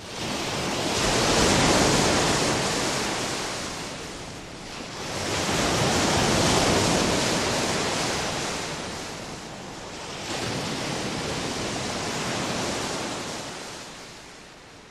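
Surf washing up a sandy beach: a hiss of breaking and receding water that swells and fades three times.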